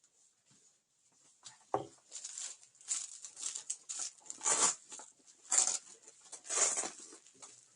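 Nylon plate-carrier vest being handled: fabric rustling with several short rasping rips, and a single knock about two seconds in.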